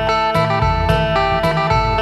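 Phin (Isan plucked lute) played through a contact pickup: a quick plucked melody over a steady drone note, with sharp pluck attacks about twice a second.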